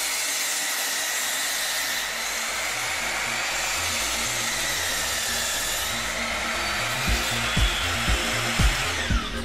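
Electric mitre saw motor running at speed, a steady whirring whine that dips in pitch around the middle and falls away near the end. A music beat comes in over it in the last couple of seconds.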